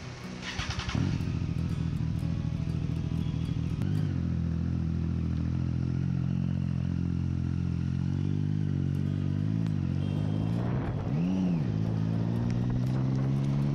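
Triumph Street Triple's three-cylinder engine running at low, steady revs as the bike rolls off. About eleven seconds in there is one quick rise and fall in revs, then the revs climb gently as it gets under way.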